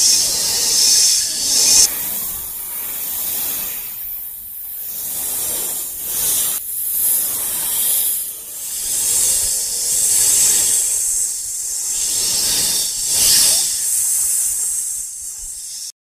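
A loud hissing noise that swells and fades every second or two, then cuts off suddenly near the end.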